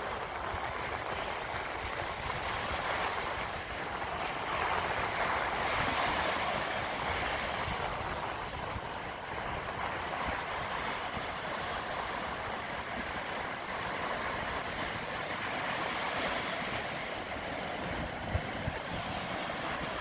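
Sea waves breaking and washing up a sandy beach: a steady surf wash that swells louder twice, about four to eight seconds in and again around sixteen seconds.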